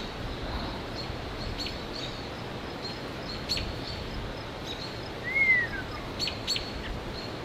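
Birds chirping: short, sharp chirps recur every second or so, and a single clear whistle arches up and falls away about five seconds in. A steady rushing background noise runs beneath them.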